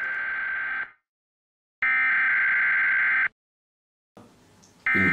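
Harsh buzzing electronic alert tones, each about a second and a half long, repeated three times with dead silence between: the data-burst header of an emergency broadcast alert.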